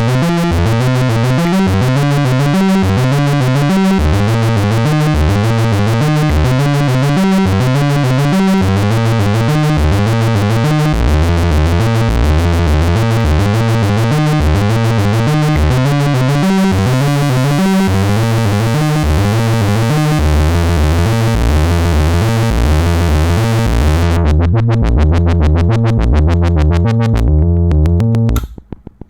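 Behringer Crave analog monophonic synthesizer playing a repeating step-sequenced bass riff. About two-thirds of the way in the filter closes and the sound turns dull, and near the end it drops to short, quiet, stuttering notes.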